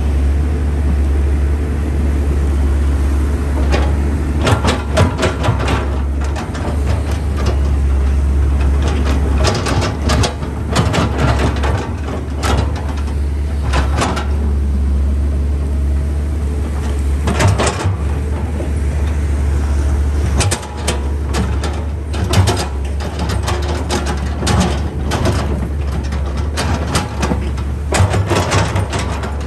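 Komatsu PC210 hydraulic excavator at work: its diesel engine runs steadily while the bucket digs wet soil, with repeated sharp clanks and knocks from the bucket and its linkage that come in clusters.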